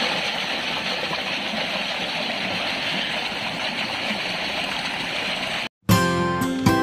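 Steady rush of a shallow mountain stream pouring over boulders. Near the end it cuts off for a moment and plucked acoustic guitar music begins.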